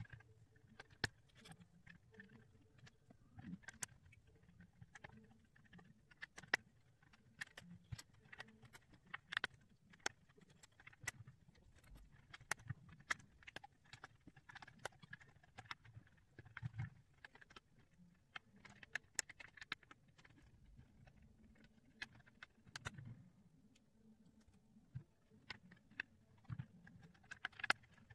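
Faint, irregular clicks and taps of plastic Ravensburger 3D puzzle ball pieces being handled and pressed together into the curved shell, with a couple of short pauses.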